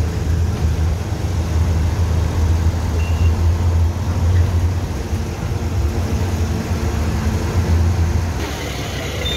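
City bus engine running with a steady low drone, mixed with road and traffic noise heard from inside the open-windowed bus as it drives along. About eight seconds in, the engine's low drone fades.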